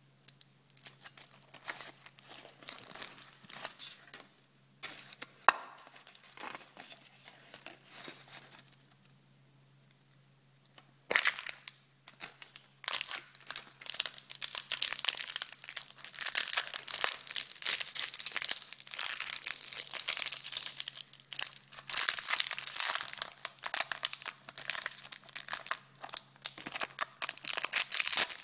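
Foil wrapper of a chocolate surprise egg crinkling and tearing as it is peeled off by hand. After a short lull, a sharp snap about eleven seconds in is followed by long, dense crinkling of wrapping as the chocolate is broken open and the toy unwrapped.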